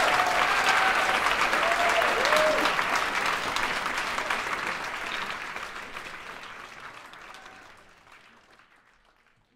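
Audience applauding, with a couple of whooping cheers in the first few seconds, then fading away to silence.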